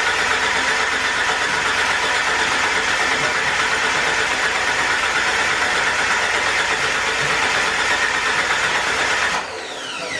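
A turbocharged Jeep Wrangler's engine is cranked steadily by its starter motor without firing, because the crank sensor is unplugged: a priming crank to push oil through the new turbo before first start. About nine seconds in, the cranking stops and the starter winds down with a falling whine.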